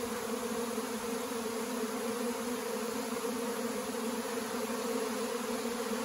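Steady hum of a honeybee swarm in flight, many bees buzzing at once. The swarm is still airborne and unsettled, not yet clustered on a limb.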